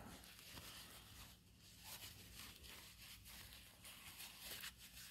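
Faint rustling and a soft zipper as a small satin jewelry pouch is handled and unzipped.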